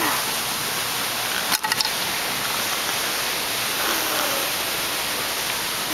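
Steady even hiss, like rushing water or wind noise, with a short cluster of clicks about a second and a half in and a faint voice-like sound near the middle.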